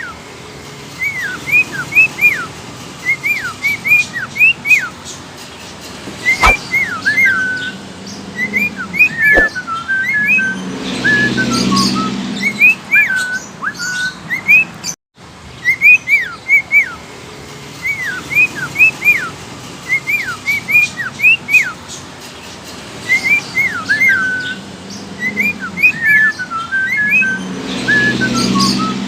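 Budgerigar whistling a steady string of short chirps, mostly quick rising notes with a few falling ones. After a brief break in the middle, the same sequence plays through a second time.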